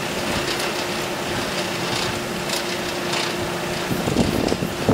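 Coal forge air blower running with a steady hum over the rushing of the fire, which is being brought to welding heat; a few faint crackles. The hum stops about four seconds in.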